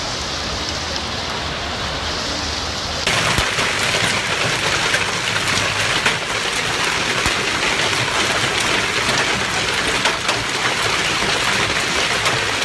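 Hailstorm: hail and heavy rain pelting down in a dense, steady hiss scattered with many sharp ticks of stones striking. It turns suddenly louder and brighter about three seconds in.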